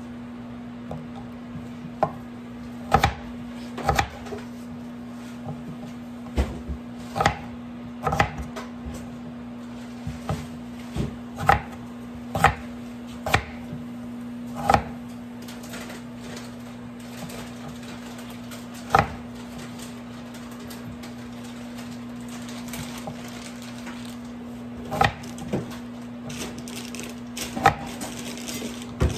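Stainless steel crinkle-cut knife chopping red potatoes on a wooden cutting board: sharp, irregular knocks each time the wavy blade strikes the board, about one every second or two. A steady low hum runs underneath.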